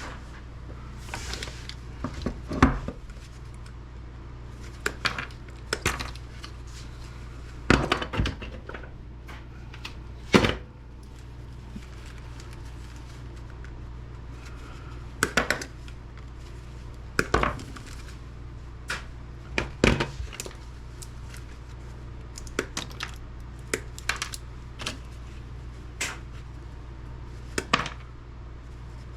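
Irregular clinks, clicks and knocks of small hard objects being handled and set down, a few seconds apart, over a steady low hum.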